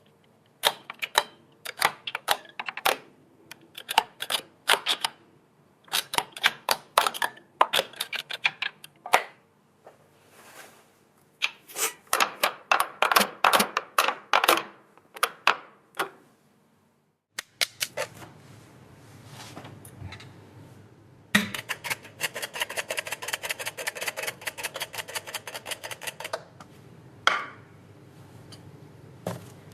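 Sharp clicks and clatter of small plastic and metal parts of a keyless RV lock being handled, coming in irregular clusters. Later comes a fast run of rapid clicks lasting about five seconds, then a few single clicks.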